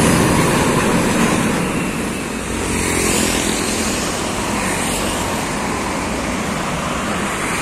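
Road traffic passing close: a flatbed tractor-trailer truck and a motorcycle go by at the start, then a steady run of motorcycles and cars with engine and tyre noise. It is loudest in the first two seconds and eases off about two seconds in.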